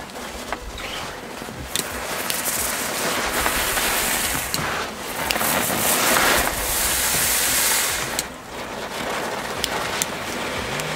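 A small Class 1 ground firework burning with a steady hiss and scattered crackles. It is loudest around the middle and eases off somewhat near the end.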